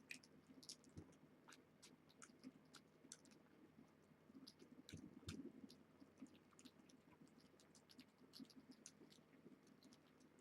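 Faint, irregular little wet clicks and smacks of cats feeding, a few to several a second, over a quiet room.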